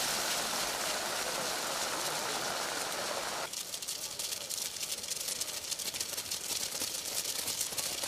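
Rain falling, with a wash of crowd voices in the first few seconds. About three and a half seconds in, the sound cuts to thinner rain with many quick drops tapping close by.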